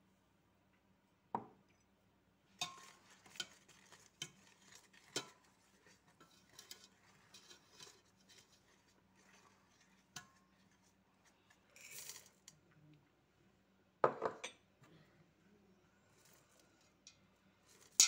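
A whisk stirring flour into a wet mixture in a metal mixing bowl: it scrapes and clinks against the bowl's sides at irregular intervals. The loudest clinks come about a second in, around fourteen seconds in, and at the very end.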